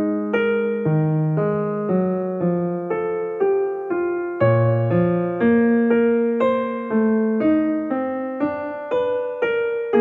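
Background piano music: a calm melody over chords, with new notes struck about twice a second.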